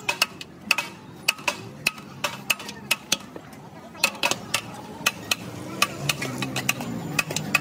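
Metal serving spoon clinking and scraping against a large metal biryani pot as rice is scooped out, in quick, irregular, ringing clinks several times a second.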